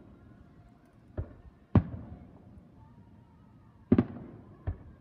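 Aerial firework shells bursting: four booms, two of them loud about two seconds apart, with a lighter thud just before the first and just after the second, each trailing off briefly.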